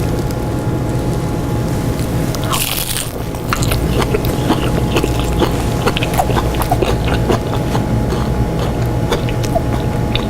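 A person biting into and chewing a crispy fried egg roll: a crunch about two and a half seconds in, then many small crackling crunches as it is chewed, over a steady low hum.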